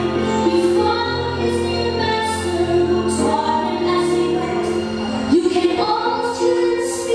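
A woman singing into a microphone over accompanying music with held chords and a bass line; the bass drops away about five seconds in.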